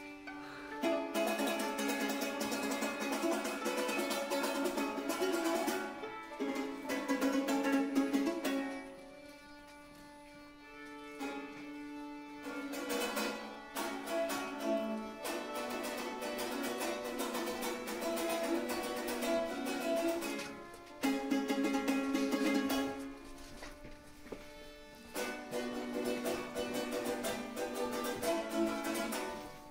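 Georgian panduri strummed, played in phrases with short pauses in between.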